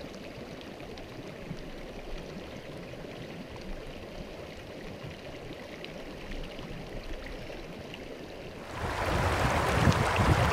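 Small mountain stream running over a cobble bed: a steady, gentle rush of water. About nine seconds in, a much louder rushing noise takes over, with low thumps.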